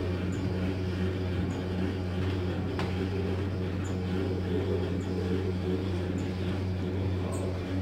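Steady low machine hum, with a faint high tick about once a second.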